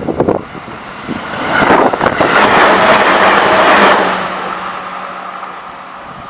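A vehicle passing close by at a railway level crossing: a few knocks at the start, then a swell of noise that peaks about two to four seconds in and slowly fades.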